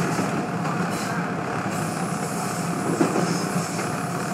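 Toronto TTC subway train running along the track: steady wheel-and-rail noise with a faint steady whine, and one sharp clack about three seconds in.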